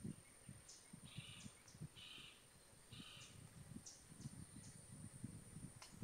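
Faint outdoor wildlife ambience: a steady high insect drone, with three short raspy calls about a second apart and scattered faint ticks and low rumbles.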